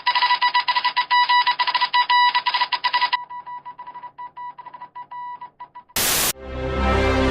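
Rapid, irregular electronic beeping on one steady pitch, loud at first and quieter from about three seconds in. A short burst of static comes near the end, followed by music starting up.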